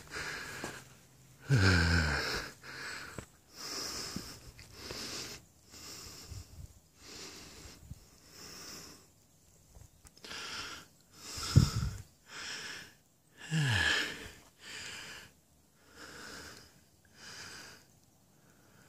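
A man panting hard as he climbs a steep trail: quick, noisy breaths in and out about once a second, out of breath from the exertion. A few breaths come out as short groans that drop in pitch; the loudest is about halfway through.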